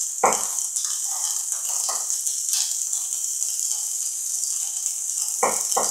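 Diced vegetables sizzling steadily in a frying pan, with a kitchen knife cutting tomatoes on a wooden cutting board: a knock of the blade on the board just after the start, another about two seconds in, and two close together near the end.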